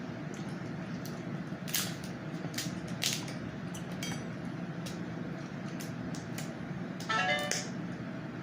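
Close-up eating sounds from a seafood boil: short wet smacks and clicks of chewing, spaced irregularly, with a brief hummed note about seven seconds in.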